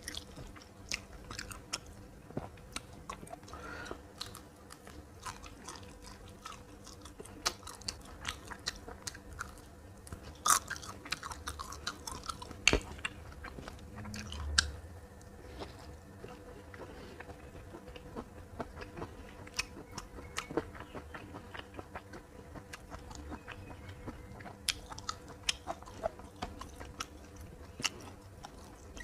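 Close-up chewing and biting of a meal of fried fish, green beans and rice, with irregular sharp crunches and clicks.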